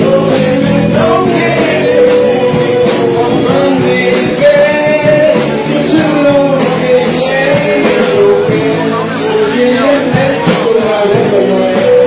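A song with a singer's voice carrying the melody over rock-style band accompaniment.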